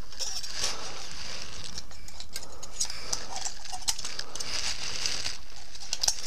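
Small metallic clicks and scrapes of a steel feeler gauge blade being worked in between a camshaft lobe and valve bucket of a Yamaha YZ450F's intake valves, checking valve clearance, over a steady hiss.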